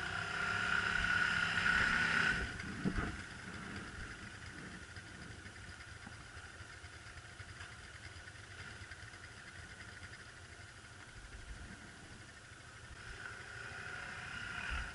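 ATV (quad bike) engines running at low revs: louder over the first two seconds, then a quieter steady idle that swells again near the end.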